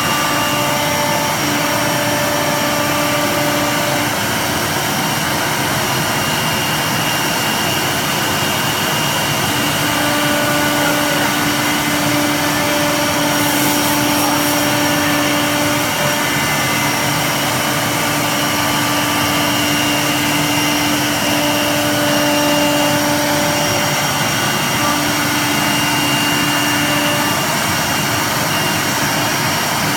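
A 1325 CNC wood router running, its spindle and machine noise steady and loud, with several whining tones that come and go every few seconds.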